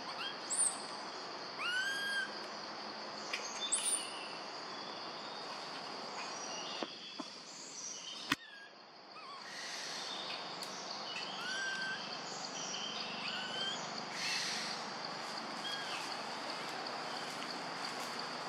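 Tropical forest ambience: a steady high-pitched insect drone. Over it come a few short rising calls, and a single sharp click sounds about eight seconds in.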